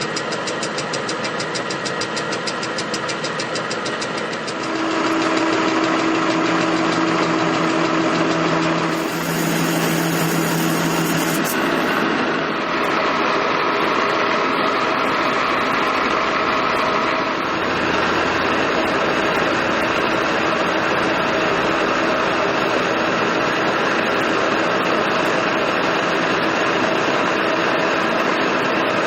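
Monarch lathe running under power with a steady mechanical hum and gear whine. Its tone changes at several points, as when the spindle speed is shifted. In the first few seconds a rapid, even ticking runs along with it.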